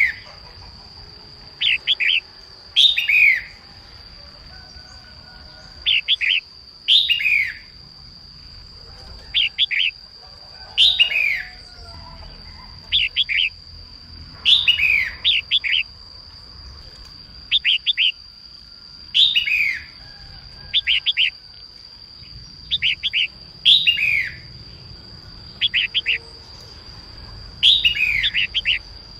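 Female red-whiskered bulbul calling: short chirping phrases with quick falling notes, repeated every second or two. A steady high whine runs underneath.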